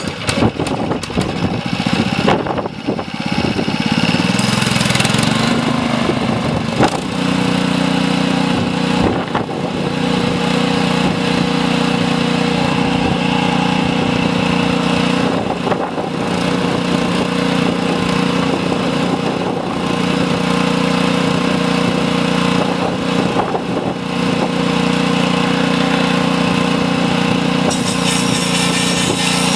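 Greyhound 6.5 horsepower four-stroke gas engine starting up, rising in speed over the first few seconds and then running at a steady speed.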